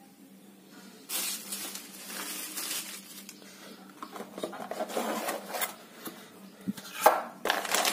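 Cardboard packaging being handled: the box's cardboard insert rustles and scrapes as it is moved and pulled out, with a couple of louder rustles near the end.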